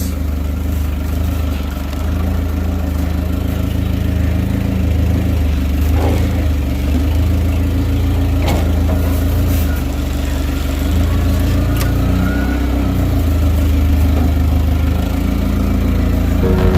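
An engine running steadily at low speed, with a couple of short knocks partway through.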